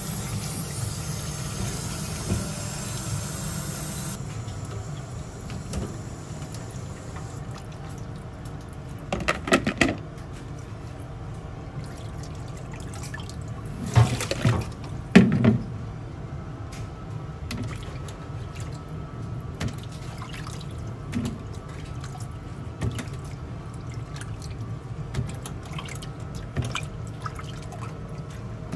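Water running and splashing in a stainless steel kitchen sink as freshly boiled shrimp are cooled in a pot of ice water. There are a few sharp clanks of the metal pot about a third of the way in and again near the middle.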